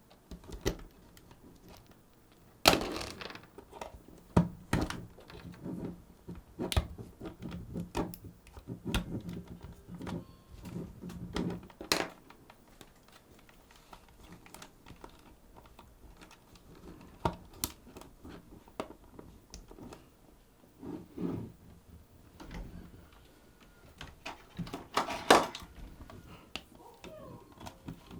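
Small clicks, taps and knocks of plastic casing parts, screws and hand tools as a Sony HVR-DR60 hard-disk recorder is taken apart. They come irregularly, busiest in the first dozen seconds and again near the end, with a quieter stretch in between.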